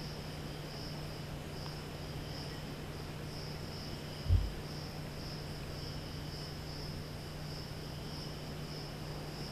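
Crickets chirping steadily in a pulsing high trill, over a steady low hum. A single dull thump about four seconds in.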